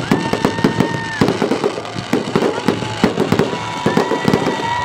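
Fireworks fired from the ground in quick succession: a dense, rapid run of pops and crackle as stars shoot up and break. Two steady whistles of about a second each sound over it, one at the start and one about four seconds in.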